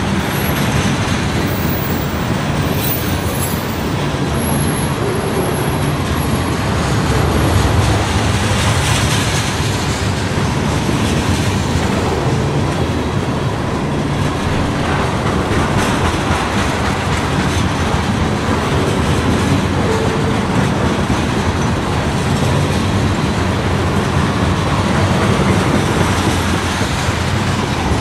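Freight train tank cars rolling past at close range: a steady, loud noise of steel wheels running on the rails.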